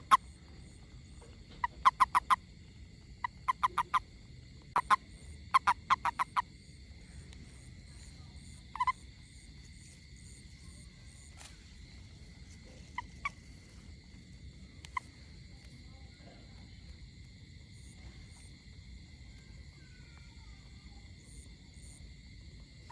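Frog calling in short, loud croaks, in quick runs of three or four during the first six seconds, then singly every few seconds. Under it runs a steady high-pitched chorus with faint repeated chirps.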